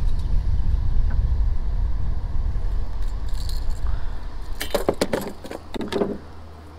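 Sharp metallic clinks in two short clusters near the end, from a folding metal fish lip-grip tool being handled, over a low rumble that fades about four seconds in.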